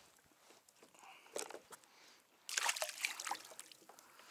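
Water splashing and sloshing beside a kayak as a live mackerel bait is dropped into the sea, with the loudest burst of splashing a little past halfway.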